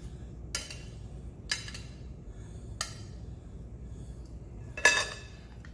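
Metal salad tongs clinking against a glass bowl and a plate as salad is served: four short clinks spread out, the loudest near the end.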